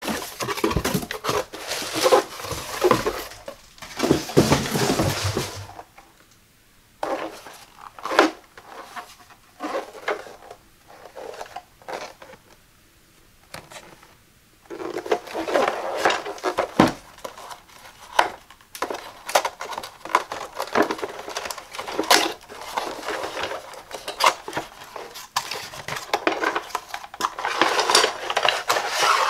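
Packing tape peeled and torn off a cardboard shipping box for the first several seconds, then scattered taps and scrapes of hands handling a printed cardboard product box. Near the end comes busy rustling and scraping as the box's flap is opened and a wooden dowel slides out.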